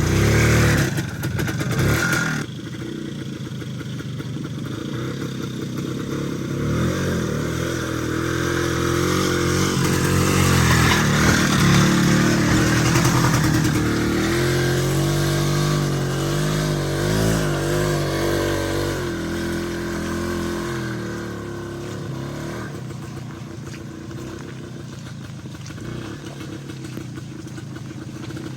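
Vehicle engine running under varying load, its pitch rising and falling as it revs, then easing off and quieter after about twenty seconds.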